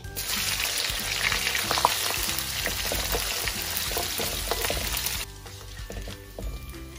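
Dried fish pieces sizzling hard in hot oil in a wok. The sizzle cuts off sharply about five seconds in, leaving softer crackling and a few light clicks of a spatula and strainer in the oil.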